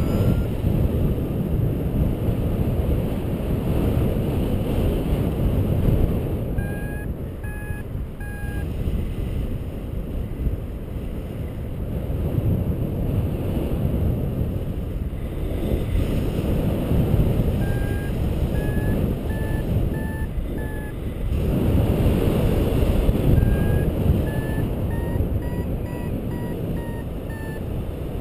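Paragliding variometer beeping in spells of short pips, the pitch stepping higher within the later spells: the climb tone that signals the glider rising in lift. Under it, steady wind rushes over the microphone in flight.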